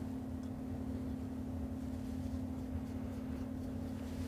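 Steady low electrical hum of workshop background, with a couple of faint light metal clicks from a screwdriver worked in a screw hole of an aluminium heatsink.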